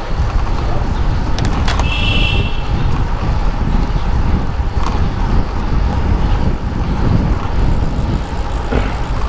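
Wind buffeting a helmet-mounted GoPro's microphone on a moving bicycle in traffic, a steady low rumble. There is a brief high-pitched squeal about two seconds in and a few faint clicks.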